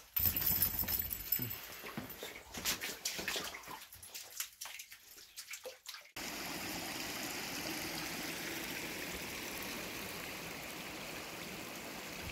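Floodwater sloshing and splashing, with scattered small knocks. About six seconds in it cuts abruptly to a steady rush of water trickling past sandbags.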